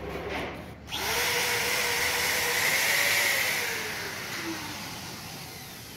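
A motor starts up suddenly with a loud hiss and a faint wavering whine. The whine then drops in pitch and the sound fades away over the last couple of seconds.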